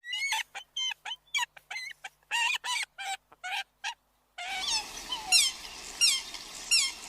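Animal calls: a run of short, high chirps, about three a second, breaking off about four seconds in. Then, over a steady hiss, comes a series of squeals that each slide down in pitch, one about every 0.7 seconds.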